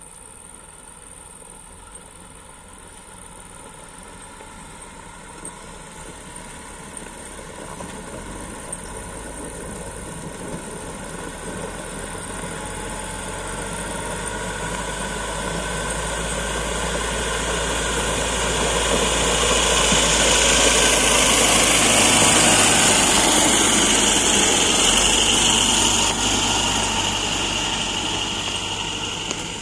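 Tractor engine running as the tractor approaches towing a trailer loaded with hay bales. It grows steadily louder and is loudest as it passes close by, a little past two-thirds of the way through.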